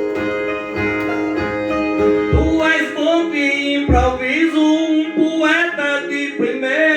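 Cantoria music: a plucked viola accompaniment, joined about two and a half seconds in by a singer's sung verse with bending, drawn-out notes. There are two brief low thumps partway through.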